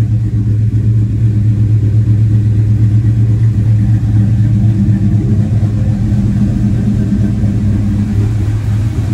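Ford 4.6 two-valve SOHC V8 with aftermarket camshafts, idling loudly through long-tube headers and a Flowmaster 40 exhaust, with a steady low rumble and a slight rhythmic ripple. The sound is echoing in a garage.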